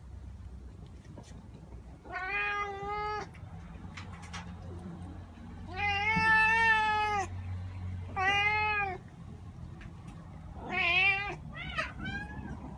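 Domestic cat meowing five times, each a drawn-out call. The second, about six seconds in, is the longest and loudest, and the last two come close together near the end.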